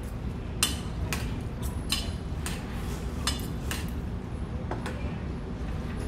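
Metal chopsticks clinking and scraping against a metal noodle bowl while spicy cold mixed noodles are tossed: a string of light, irregular clinks over a steady low hum.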